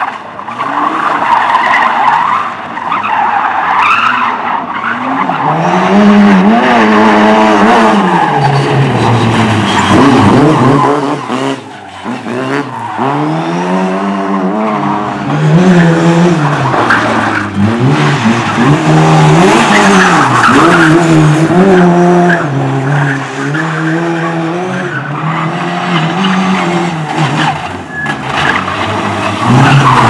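Slalom cars, a BMW 3 Series coupe and then Lada saloons, driven hard through tight turns. The engines rev up and drop back again and again, every second or two, with tyres skidding on a dusty, gritty surface.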